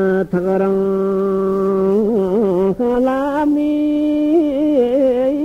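A man singing solo and unaccompanied in the melodic chant of Tibetan narrative recitation: a long held note after a quick breath, wavering ornamental turns, then a step up to a higher held note about three seconds in.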